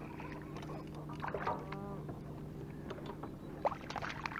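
A small bass being landed on a kayak: scattered splashes, knocks and handling noises over a steady low hum, with a few sharper knocks near the end.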